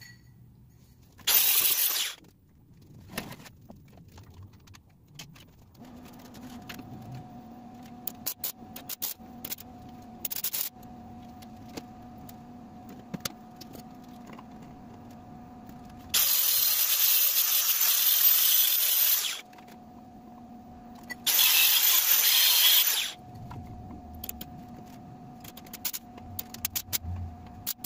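MIG welder laying tack welds: three bursts of hiss that start and stop abruptly, a short one about a second in and two longer ones of about three and two seconds past the middle. Between them a steady hum and scattered clicks.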